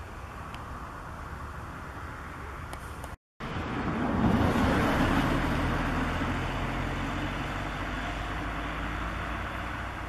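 Diesel tractor engine running, with a steady hum. It cuts out briefly about three seconds in, then comes back louder with a low engine drone that swells and slowly fades.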